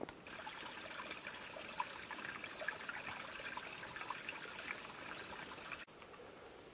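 A small rocky stream trickling into a shallow pool: a steady babble of water with small bright splashes. It stops abruptly about a second before the end, leaving a quieter outdoor background.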